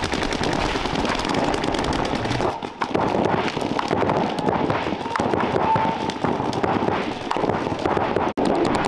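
Paintball markers firing in fast strings, several going off at once so the shots blur into dense, rapid popping.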